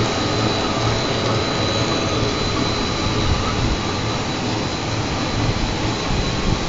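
Corn puff snack extruder and its production line running: a loud, steady machinery noise with a thin high whine over it.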